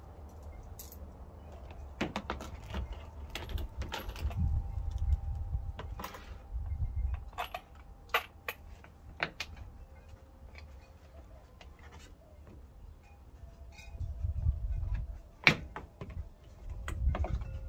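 Scattered clicks, taps and knocks of a plastic Mazda Miata front lip spoiler being handled and pushed up into place under the front bumper, with a low rumble that comes and goes. The loudest knock comes near the end.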